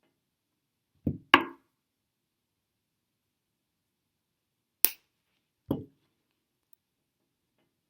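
Four short knocks and clicks from small jewelry tools and wire handled on the work table: two close together about a second in, a sharp metallic click near five seconds and a duller knock just before six.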